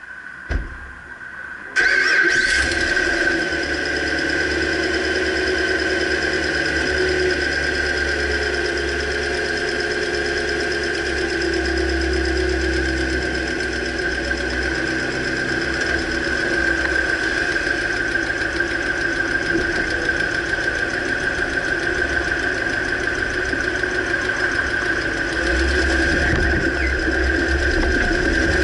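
2009 Dodge Ram pickup's engine starting about two seconds in, then idling steadily with a constant high whine.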